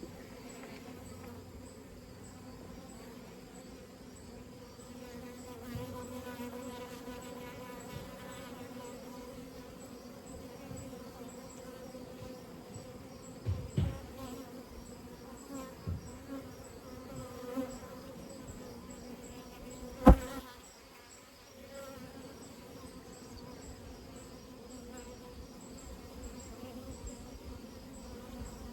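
Honeybees buzzing in flight around a hive entrance, a steady hum of many wingbeats. A few dull knocks come in the middle, and one sharp loud tap about twenty seconds in.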